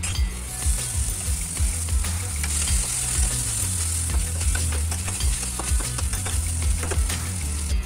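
Chicken pieces sizzling in hot oil in a metal wok as they are sautéed until golden brown, with a metal spatula scraping and stirring them against the pan. The sizzle is a steady hiss that sets in just after the start.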